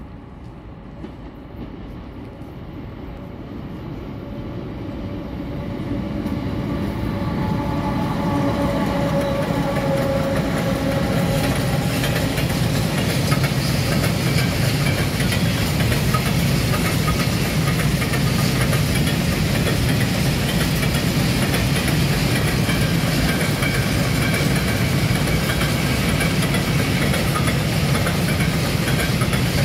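Freight train of open wagons rolling past on a nearby track, growing louder over the first six seconds or so and then holding at a steady loud rolling noise as the wagons pass.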